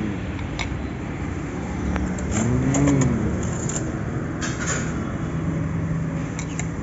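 Steady street-traffic noise with motor vehicles passing, and a short rising-then-falling pitched sound about three seconds in.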